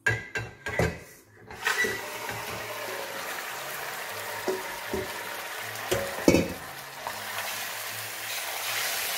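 Raw chicken pieces hitting hot peanut oil in a stainless steel pot and frying with a steady sizzle. A few clatters of the spoon and bowl as the chicken is scraped in at the start, and several knocks of the spoon against the pot a few seconds later, the loudest just past the middle.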